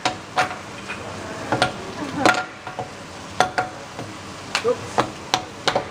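Metal salt and pepper shakers tapped and clacked against a steel teppanyaki griddle in a showy, irregular rhythm, about a dozen sharp ringing taps, with meat sizzling on the griddle underneath.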